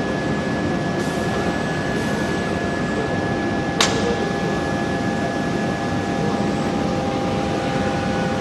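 Hot-forging line machinery running steadily, a loud mechanical din with a steady high whine and a lower hum. About four seconds in there is a single sharp metallic clank.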